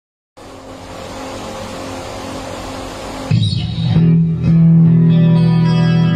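Epiphone Les Paul Nightfall electric guitar with a Floyd Rose Special bridge, recorded direct into a phone. A hiss with a faint hum swells for about three seconds, then loud, low, sustained chords come in and ring on.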